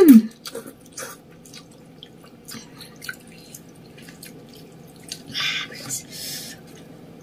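Spicy ramen noodles slurped into the mouth in one loud sucking slurp that falls in pitch. Soft mouth clicks and chewing follow, with a short hissing slurp about five seconds in.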